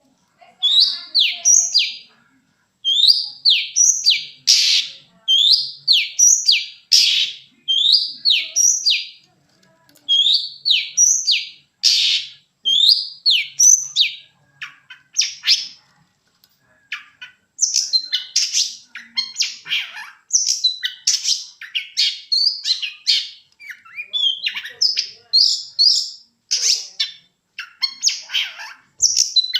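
Long-tailed shrike (penthet) singing loud bouts of fast chirping phrases, with short pauses between bouts. The early phrases repeat much the same pattern; later the notes come faster and more varied.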